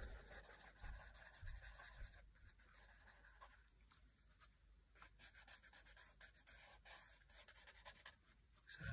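Faint, uneven rubbing of a paper blending stump worked over charcoal shading on drawing paper, in small circular strokes that blend the values together.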